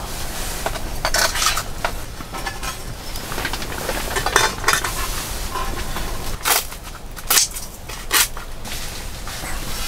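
Utensils scraping and clinking against a pan in irregular strokes as food that has burnt onto its bottom is lifted off, with a few sharper knocks in the second half.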